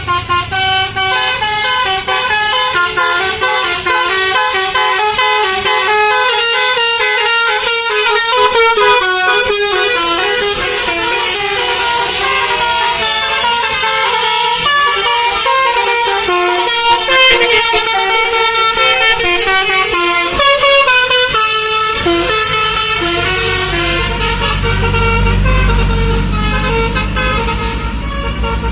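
A bus's basuri (telolet) musical air horn playing a melody of stepped notes that change pitch several times a second. Near the end the deep rumble of the heavy engine grows loud as the horn fades.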